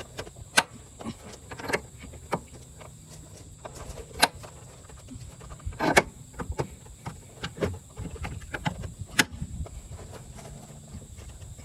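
Irregular metallic clicks and knocks of a thick flathead pry tool working against the torque rod mount and its bracket to lever the mount up for clearance, the loudest knock about six seconds in.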